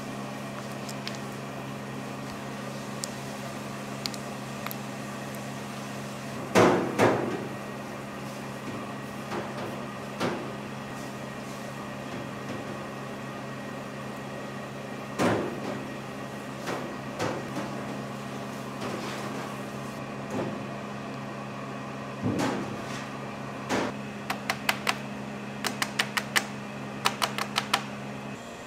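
Kitchen work sounds over a steady low appliance hum: scattered knocks and clatter of utensils and trays on a work surface, the loudest about a third and halfway in, then a quick run of light taps near the end.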